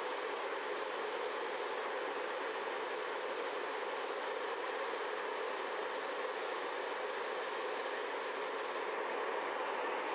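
Steady turbine hiss and whine from a parked MV-22 Osprey being readied for takeoff, its rotors not yet turning.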